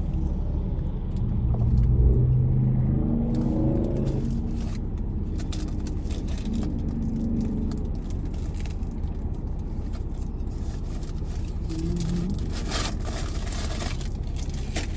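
Car running with a steady low rumble, a faint wavering hum over it in the first few seconds, and a brief light rustle near the end.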